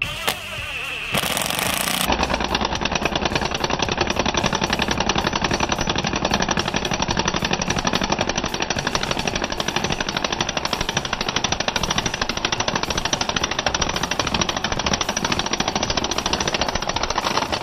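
Einhell TE-CI 18 Li brushless cordless impact driver hammering rapidly and continuously as it bores a 26 mm spade bit into a wooden board. It gets up to full impacting about two seconds in.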